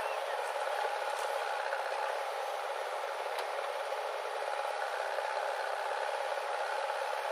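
Diesel engines of a JCB backhoe loader and a tractor running steadily while the backhoe loads soil into the tractor's trolley. The sound is a thin, even drone with no bass and a faint click or two.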